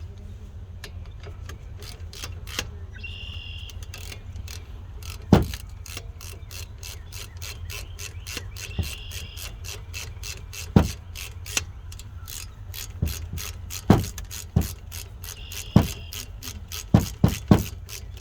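Ratchet wrench clicking steadily, several clicks a second, as the 14 mm brake caliper bolts are run back in, with a few louder knocks in the second half.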